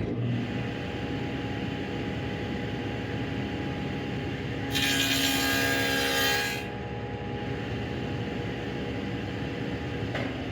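SawStop table saw with a dado blade running with a steady hum. For about two seconds in the middle it gets louder and hissier as the blade cuts a rabbet along the edge of a wooden board.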